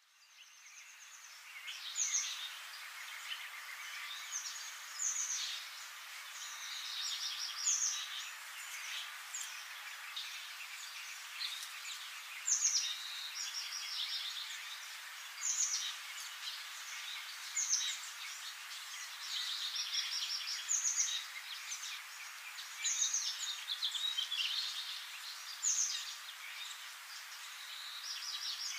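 Small birds chirping in short, rapid trills every second or two over a steady background hiss, fading in at the start.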